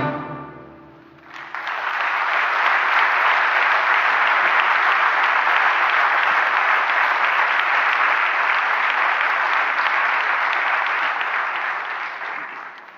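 An orchestra's last chord fades out, and about a second later an audience breaks into steady applause that dies away near the end.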